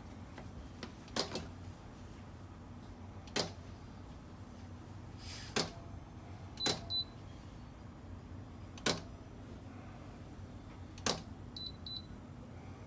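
Sharp single clicks about every two seconds, with short electronic beeps twice from a Whirlpool AWF74140 washing machine's control panel.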